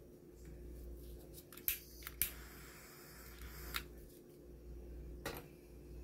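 A few sharp clicks and knocks of small objects being handled on a workbench, four in all, with a hiss of about a second and a half between the second and third, over a steady low hum.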